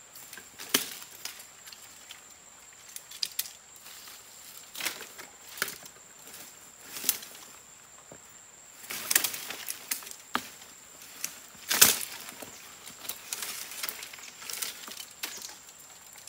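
Dry sticks and dead branches snapping and crackling, with rustling leaf litter, as firewood is gathered and broken by hand. The snaps come irregularly, the loudest about three-quarters of the way through, over a steady high insect tone.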